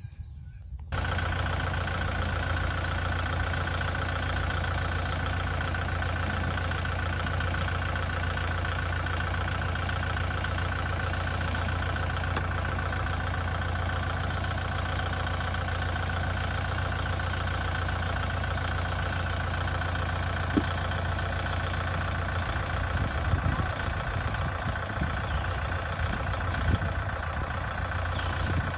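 An engine idling steadily, cutting in suddenly about a second in, with a few light knocks near the end.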